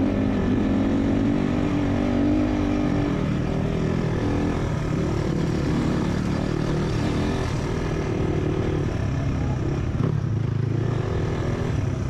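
Motorcycle engine running under way, its pitch shifting as the revs change, over low rumble and wind noise.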